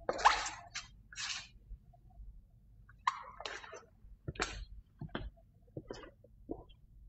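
Footsteps and clothing rustle from a man walking away: a run of irregular short scuffs and soft taps that thin out toward the end.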